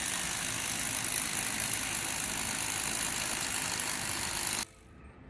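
Delivery truck's engine running steadily under a loud hiss, cut off suddenly about four and a half seconds in.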